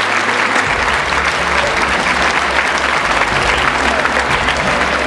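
Large audience applauding: dense, steady clapping. A low steady tone comes in underneath just under a second in.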